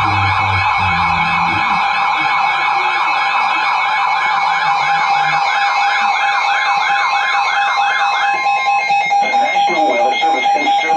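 Emergency Alert System warning tones: a siren-like warbling tone, about three warbles a second, layered over a steady alert tone. The warble stops about eight seconds in, leaving the steady tone.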